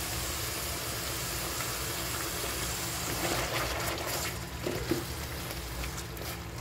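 Thick white sauce sizzling steadily as it meets hot butter and onion paste in a frying pan, while a silicone spatula stirs it. The sizzle eases a little after the middle.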